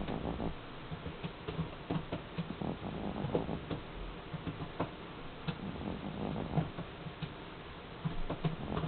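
Sleeping cat snoring, a soft crackling rattle that comes in irregular bursts about every second.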